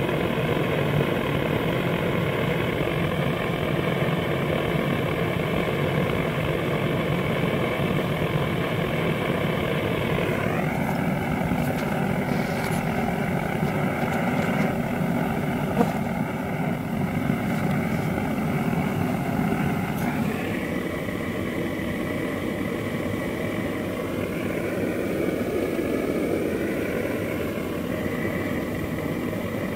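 Honeybee colony buzzing as a steady, many-toned drone at the hive entrance during oxalic acid vapour treatment. The pitch of the drone shifts twice, about a third and about two thirds of the way through.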